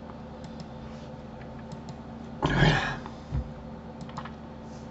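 Faint computer mouse and keyboard clicks over a steady electrical hum. About two and a half seconds in comes a loud, short noisy burst, followed by a low thump.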